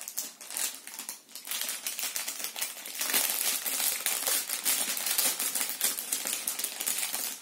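Thin plastic bags crinkling and crackling as they are handled, a dense run of small crackles that gets louder about three seconds in.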